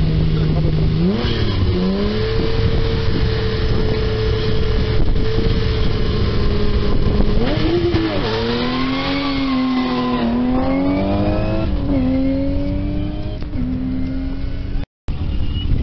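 BMW E30 rally car's engine revved up and held at a steady high pitch on the start line, then accelerating hard away, its pitch climbing and dropping at each of about three upshifts. The sound breaks off suddenly near the end.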